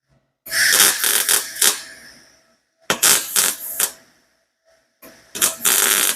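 Gas-shielded MIG welder (Harbor Freight Titanium) laying short bursts of weld onto a steel exhaust header, filling holes. The arc crackles and sputters in three bursts of about a second each, with short pauses between them.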